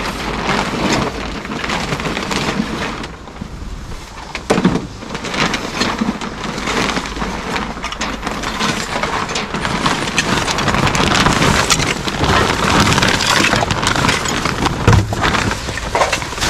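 Junk being unloaded and thrown down: a continuous clatter of knocks and crashes, with a sharp low thump about fifteen seconds in.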